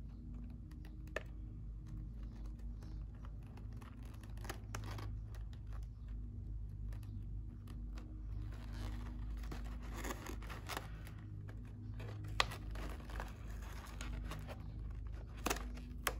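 Fingers pressing and smoothing the folded bottom of a glossy photo-paper chip bag wrapper: paper rustling and scraping in uneven spells, with scattered light taps and ticks, over a steady low hum.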